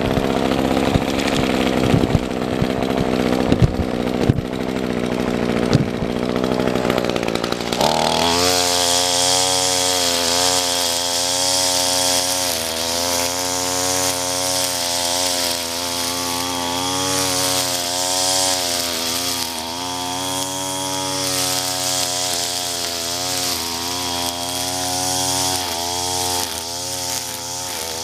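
Gas string trimmer engine at first running low with a few sharp knocks. About eight seconds in it is throttled up and runs at high speed cutting grass and weeds, its pitch wavering up and down with the load.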